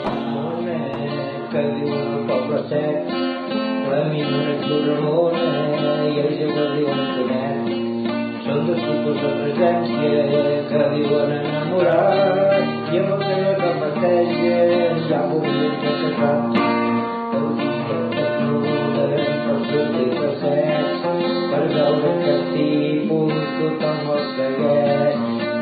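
Instrumental music led by a plucked acoustic guitar, a melody moving over a steady lower accompaniment.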